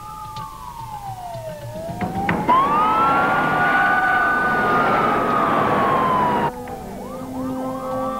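Police car siren wailing, its pitch sliding down and back up. About two and a half seconds in it grows much louder, with a rush of noise under it, then cuts off abruptly about six and a half seconds in, leaving a fainter siren.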